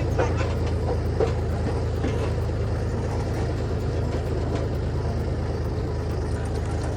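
Tractor engine running steadily while pulling a wagon ride, with a few knocks and rattles from the wagon in about the first second.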